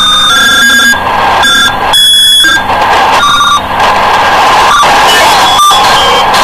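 Loud electronic tones, alarm- or buzzer-like, over dense noise, jumping abruptly in pitch and texture every half second or so.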